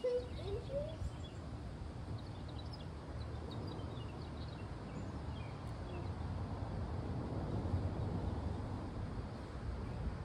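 Birds chirping faintly and intermittently over a steady low rumble.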